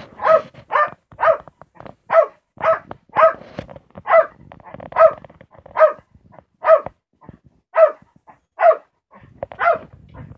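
Corgi barking at party balloons, a run of about fifteen short, sharp barks a little under a second apart, with a couple of brief pauses. It is the agitated alarm barking of a dog unsettled by the balloons.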